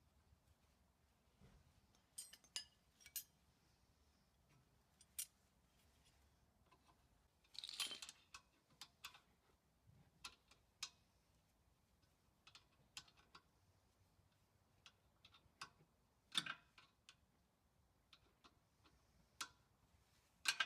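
Faint, scattered metal clicks and clinks of hand tools and brake parts being handled, with a short scraping rattle about eight seconds in.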